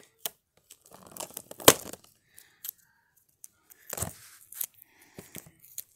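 Toy packaging being handled and pulled apart: a clear plastic tray and cardboard box rustling and crinkling in short spells, with a sharp crack about a second and a half in and another about four seconds in.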